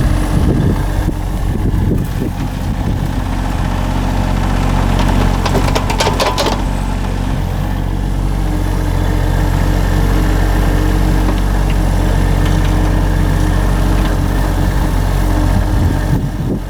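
Small engine running steadily on a work machine handling soil. About five seconds in comes a second and a half of rattling and scraping.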